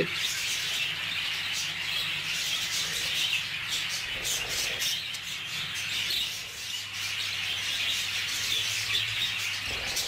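Budgerigars chattering, a continuous mix of many short chirps from several birds at once.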